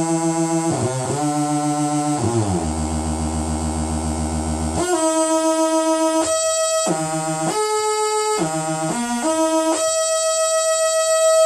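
Raw oscillator tone of an ETI Transcendent 2000 analogue monosynth, taken straight from its VCO with the filter and envelope not working, so the buzzy tone never stops between notes. It steps through a run of held notes, some gliding in pitch, dips to a deep low note for a couple of seconds, and near the end settles on one steady higher note. The pitch spread is out of adjustment.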